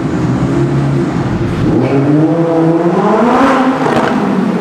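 Lamborghini Huracán's V10 engine revving as the car accelerates through a tunnel, echoing off the walls. The engine note climbs from about halfway in to a loud peak near the end, then drops away as the car passes.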